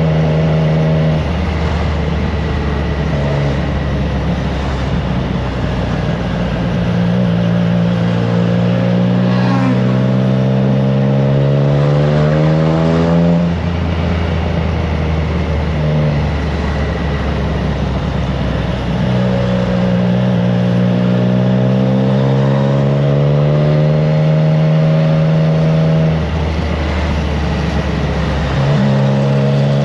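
Triumph Trident 660's inline-three engine through a FireTong aftermarket exhaust, ridden under way. The engine note climbs steadily through long pulls and drops sharply at several gear changes, with wind rumble on the microphone.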